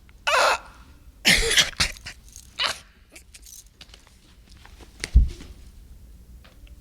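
A man making short, loud non-word vocal noises: several quick bursts in the first three seconds, then one sharp thump-like sound about five seconds in.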